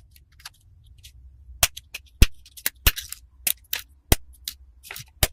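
Irregular sharp clicks and light knocks, about a dozen, as of small hard objects being handled, over a faint low hum.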